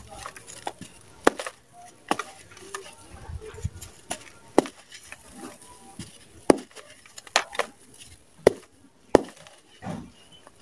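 Dry clumps of red sand crushed by hand in a plastic tub: sharp crunches about once a second, with the soft hiss of loose grains pouring and sifting between them.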